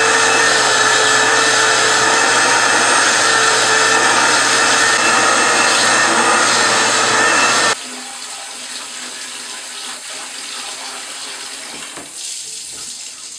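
Shop vac running steadily with a whine from its motor as its hose nozzle works over a fabric seat cushion; it cuts off suddenly about eight seconds in. Then water splashes from a tap into a plastic bucket, quieter.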